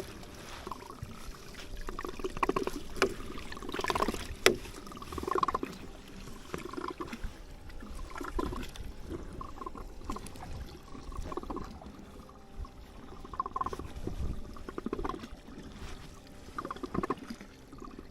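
Water lapping and slapping irregularly against the hull of a small boat, with a couple of sharp knocks a few seconds in.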